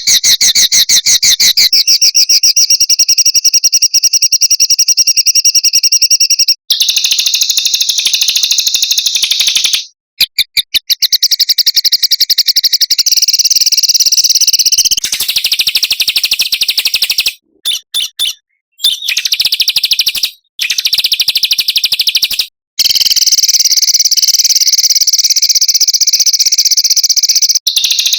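Small songbirds singing very fast, high-pitched rolling trills and rapid repeated notes, loud and continuous. The song comes in edited stretches that break off with abrupt short silences between them. It is a recorded tutor song ('masteran') played for caged birds to learn.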